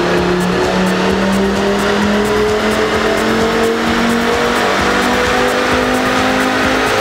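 Audi RS3's 2.5 TFSI turbocharged five-cylinder engine running hard under load on a roller dynamometer, its pitch climbing slowly through a power run.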